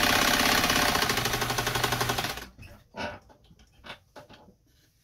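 Lincoln class 15 sewing machine running under its electric motor, the needle stitching rapidly through fabric in an even, fast rhythm that stops abruptly about two and a half seconds in. A few light clicks and knocks follow.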